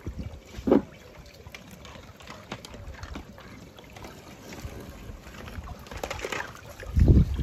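Water sloshing and splashing as a pool skimmer net is swept through a swimming pool and lifted, with a short sharp sound about a second in and a splash near the end. The loudest part is a short low rumble just before the end.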